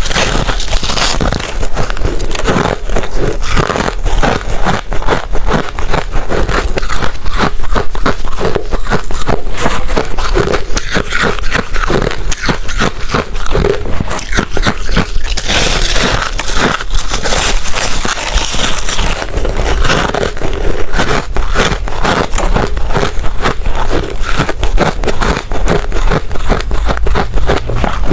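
Ice being bitten and chewed close to the microphone: a dense, irregular run of loud crunches and crackles.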